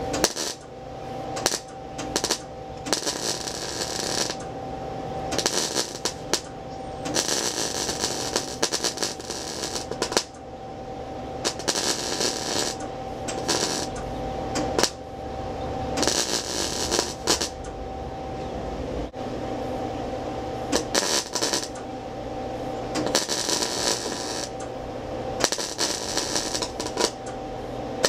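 MIG welding arc crackling and sputtering in repeated short bursts of about a second, broken by brief pauses as the trigger is released, while weld is laid around a hole in thin-gauge sheet steel. The stop-start tack-type welding keeps the thin metal from getting too hot and burning through. A steady hum runs underneath.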